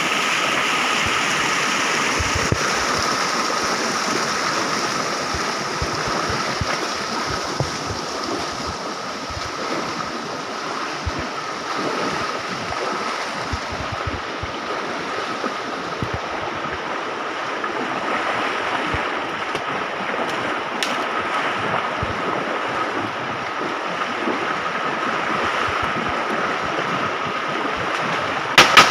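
Shallow jungle stream rushing and splashing around the legs of people wading up it, with a thin steady high tone beneath. Near the end come two sharp, loud gunshots close together.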